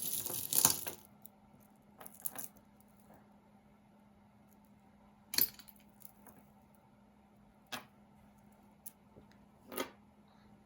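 Costume jewelry clinking and jangling as pieces are handled and sorted: a short rattle of metal pieces at the start, then several separate light clicks as pieces are picked up and set down.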